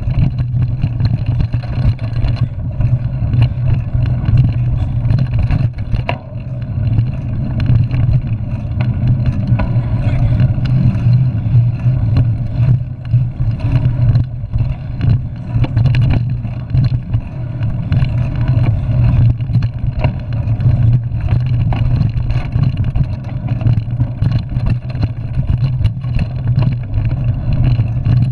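Ride noise from a mountain bike on a rough dirt trail, picked up by a handlebar-mounted camera: a steady low rumble of wind and rolling, with frequent small knocks and rattles from bumps.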